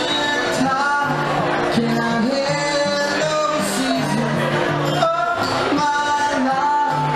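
Live band playing a song: a man singing over strummed acoustic guitar with low steady notes underneath and cymbal strokes.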